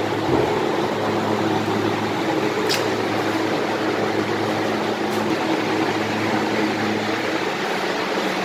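Freezer cold-room refrigeration fans running: a steady rush of moving air over a low, even hum.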